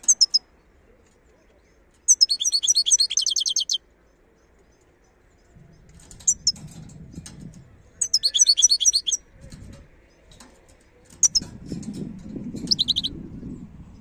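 Wild European goldfinch singing: short bursts of rapid, high twittering notes, the longest lasting under two seconds, broken by pauses. A low rustling runs under the later phrases.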